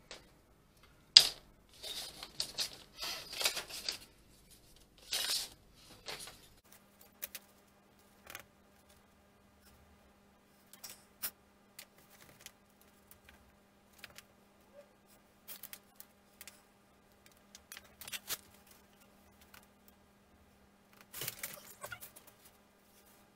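Laser-cut wooden kit parts being handled and laid out on paper plans on a workbench: clacking, tapping and paper rustling, busiest in the first six seconds with one sharp clack, then scattered light taps and a burst of rustling near the end. A faint steady hum sits under it from about six seconds in.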